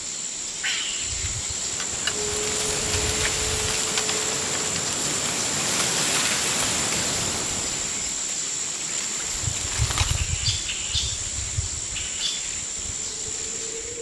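Outdoor ambience dominated by a steady, high-pitched insect drone, with a few faint bird chirps. Low rumbles on the microphone come and go, most strongly about ten seconds in.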